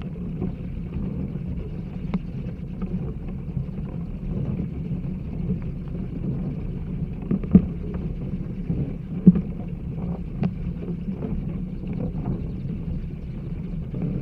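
Flying fox colony in trees, picked up as a vibration recording: a dense low rumble with scattered short, sharp squeaks and clicks, the loudest two about seven and a half and nine seconds in.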